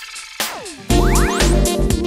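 Background electronic music: a short break with a falling sweep, then the beat with heavy bass comes back in about a second in.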